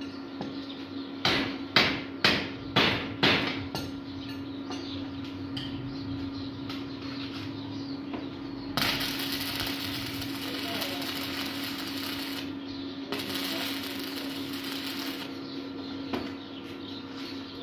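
About six sharp metal strikes, a hammer knocking on the iron grill, a second or so in. Then two runs of crackling arc-welding hiss, each a few seconds long: stick-welding tacks fixing the wire mesh to the grill frame. A steady hum sits underneath throughout.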